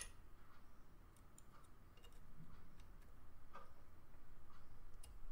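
Small metal clicks and ticks from a sewing machine's needle clamp and screw as the needle is set and the screw tightened by hand. A sharper click comes right at the start, then a few faint scattered ones.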